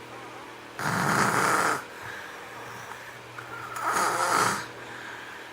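Snoring: two snores about three seconds apart, each lasting about a second, over a faint steady hum.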